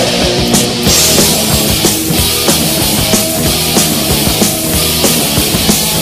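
Loud rock music with a drum kit beat playing steadily.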